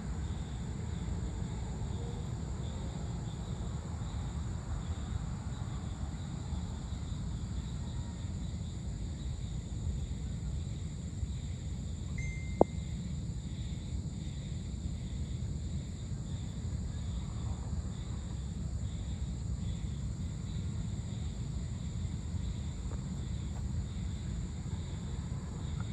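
Evening outdoor ambience: a steady high insect drone over a steady low rumble. About halfway through there is a short high tone, then a single sharp click.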